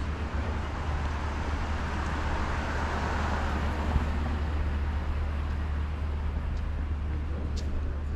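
Road traffic with a steady low rumble; a vehicle passes, swelling up and fading away about two to four seconds in. A single light knock about four seconds in.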